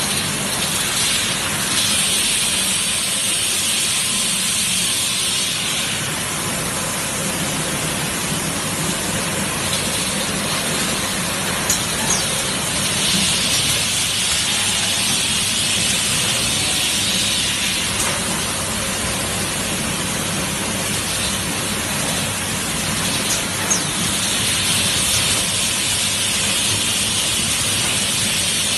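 Bottled-water packing line machinery running: a steady rushing hiss, with a louder, higher hiss swelling three times for a few seconds each and a couple of sharp clicks.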